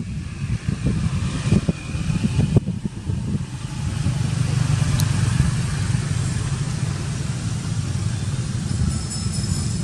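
A motor vehicle engine running with a steady low rumble, with a few soft knocks in the first three seconds.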